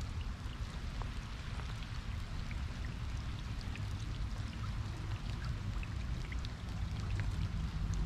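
Steady rush of river water with rain falling, scattered small raindrop ticks over a low rumble.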